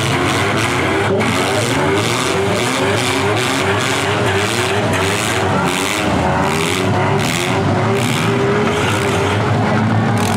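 Engines of several demolition derby compact cars running and revving at once, their pitches rising and falling against each other.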